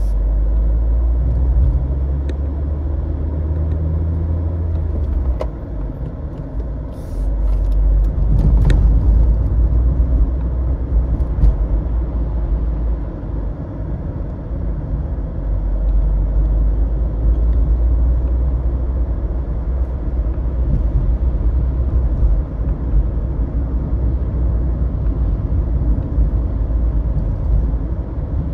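Car driving: steady low rumble of engine and road noise, with a few short clicks or knocks about a third of the way in.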